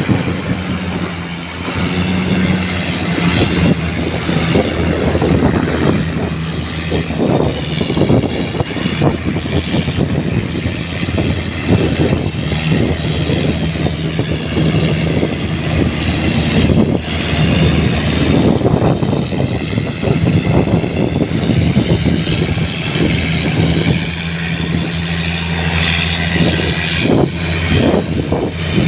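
Tugboat's diesel engine running steadily, with a rough, continuous drone.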